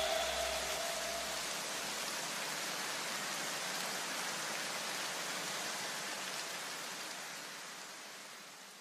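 Steady rushing hiss, like rain, left in the electronic background music after the beat drops out, with the last low bass notes dying away in the first two seconds and the hiss fading out near the end.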